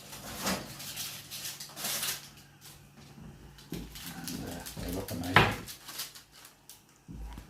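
Kitchen handling sounds of a baking tray being taken from an oven: scraping and rustling, then a sharp metallic clack about five seconds in, over a steady low hum.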